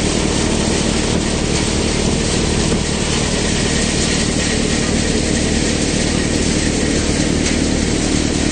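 Multicrop thresher running steadily while threshing groundnuts: a constant low engine drone under an even rushing hiss.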